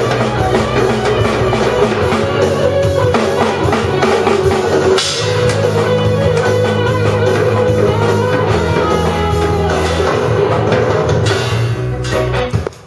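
A rock song with guitar and drums playing loudly, with a child's small drum kit struck along with it.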